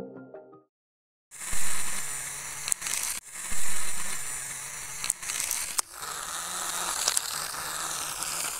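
Background music ends about half a second in; after a brief gap, the small DC motors of a homemade toy car run with a steady hum as it rolls over loose dirt, with gritty crackling and a few sharp clicks and knocks.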